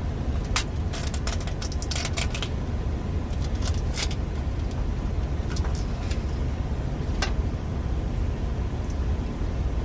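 A knife cutting through a lobster tail's shell on a wooden chopping board: a run of sharp cracks and clicks over the first four seconds, then a few single clicks later. A steady low rumble runs under it.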